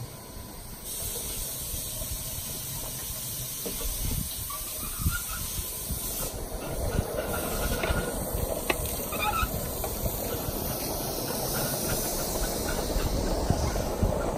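Small 1-inch-scale live steam locomotive hissing steam as the train starts off. Wheels rumble and knock over the rails, growing louder as it picks up speed.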